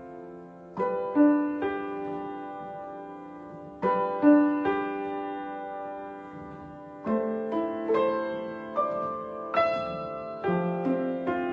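Slow piano music: chords and single notes struck every second or few, each left to ring and fade before the next.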